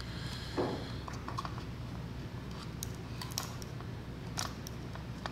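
Scattered light clicks and taps of small plastic and metal parts being handled while an Amazon Echo Spot is taken apart, with a brief scrape about half a second in, over a steady low hum.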